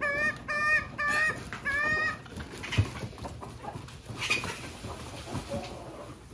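A chicken clucking in a run of short, evenly spaced calls, the last one drawn out, about two seconds in. Quieter scratching and scuffling follow, with a single sharp knock.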